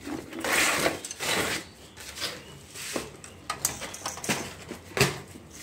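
Handling noise from battery leads and clips being moved about: about a second of rubbing and scraping, then a few sharp clicks and knocks, the loudest near the end.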